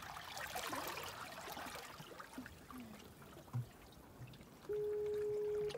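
Seawater trickling and lapping among jetty rocks, strongest in the first couple of seconds. Near the end a loud, steady single-pitched tone sounds for about a second and stops suddenly.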